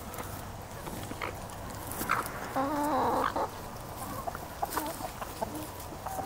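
A flock of chickens clucking softly while they peck at cantaloupe, with scattered light pecking clicks. About halfway through, one hen gives a louder, drawn-out call of about a second.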